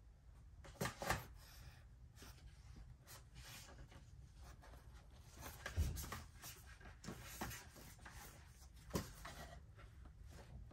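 Paper rustling as a printed instruction sheet and booklet are handled and their pages turned, in short scattered bursts, with a bump about six seconds in.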